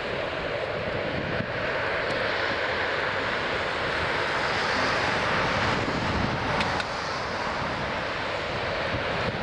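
Jet engines of an Airbus A320 airliner running at low power on the runway: a steady rushing noise that grows slowly louder.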